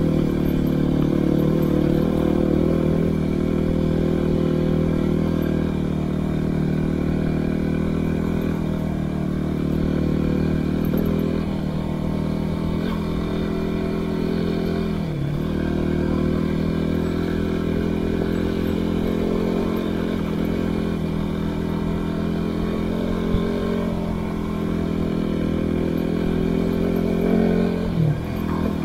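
Yamaha WR250R's single-cylinder four-stroke engine running steadily while the bike is ridden, its note dipping briefly and coming back about halfway through and again near the end.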